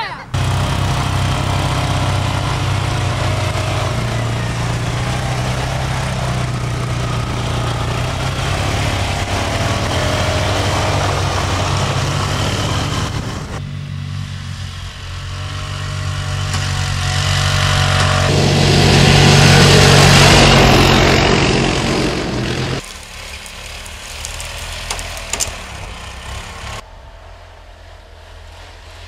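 Vehicle engine running with a steady low hum, then swelling into a louder rushing run that peaks about twenty seconds in and cuts off suddenly, leaving a quieter engine hum.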